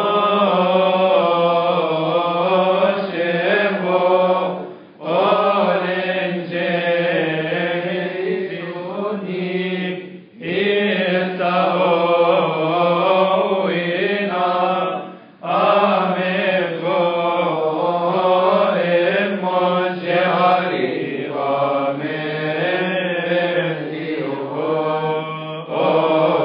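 Coptic Orthodox liturgical chant: male voice singing long melismatic phrases, with a short break for breath about every five seconds.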